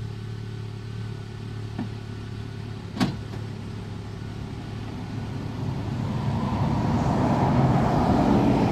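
A pickup truck's engine idles steadily, with one sharp knock about three seconds in. Over the last few seconds a passing tractor-trailer grows louder and covers the idle.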